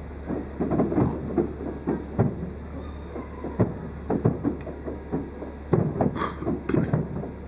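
Distant aerial firework shells bursting in a rapid finale barrage: an irregular string of low booms, several a second. A brief higher-pitched burst of sound comes about six seconds in.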